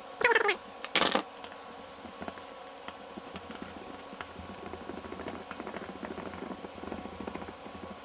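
A nut being run down a bolt with an open-end wrench, metal on metal: a sharp metallic click about a second in, then a faint, steady rasping of the wrench working the nut, with scattered small clicks.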